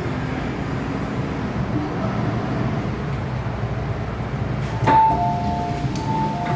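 Inside an MTR M-Train car, a low steady rumble and hum of the train. About five seconds in a sharp clunk comes as the doors release, then the two-note door chime (high then low) sounds twice as the doors open.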